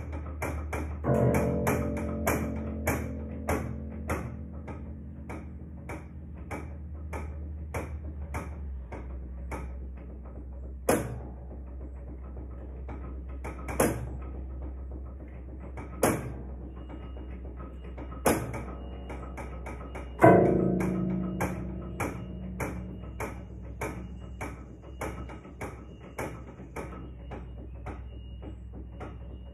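An old upright piano, long untuned and without a working sustain pedal, played in a run of repeated notes about two or three a second. Heavy accented low chords come every few seconds, and the loudest is about two-thirds of the way through.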